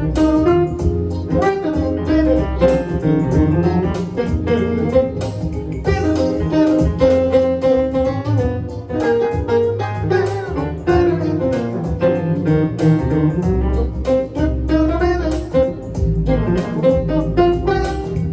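Instrumental break in a slow song, with no singing: a melody over a sustained bass line.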